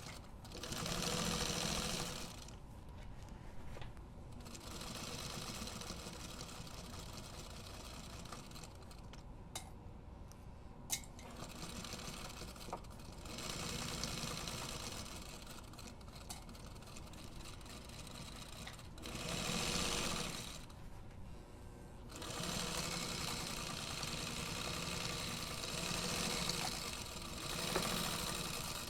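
Domestic sewing machine stitching a zipper seam in several spurts, speeding up and easing off, with a sharp click about midway.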